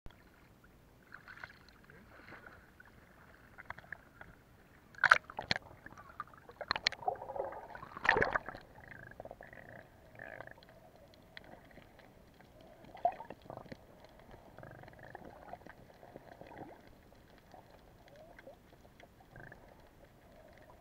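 Muffled water sloshing and gurgling around a camera at and under the sea surface, with a few sharp knocks and splashes about five to eight seconds in and once more near thirteen seconds.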